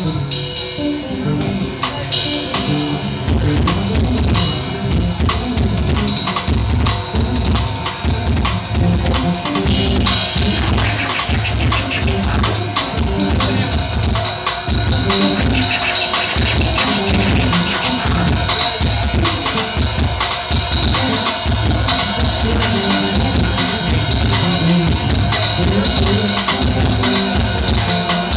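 Drum kit played in a steady beat, with kick drum, snare and cymbals; the kick drum comes in strongly about three and a half seconds in.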